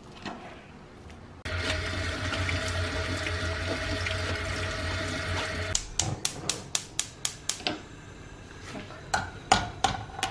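Kitchen tap running steadily for about four seconds, rinsing lamb pieces in a mesh sieve, then shut off abruptly. A quick run of even clicks follows from the gas hob's igniter, about five a second, then a few light knocks as meat goes into the frying pan.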